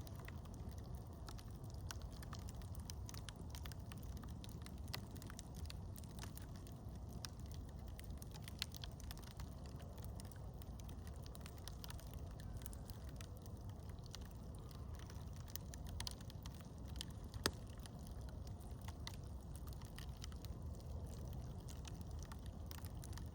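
Campfire crackling, with scattered sharp pops and snaps, the loudest two about 9 and 17 seconds in, over a steady low rumble.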